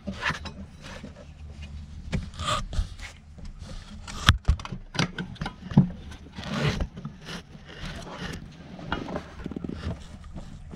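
Scraping and irregular knocks and clicks of hard parts being worked by hand as the fuel pump assembly is pushed back into the tank. A sharp knock stands out about four seconds in, and another about six seconds in.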